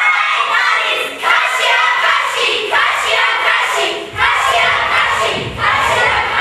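A group of young voices calling out together in unison, in short repeated phrases about a second long with brief gaps between them.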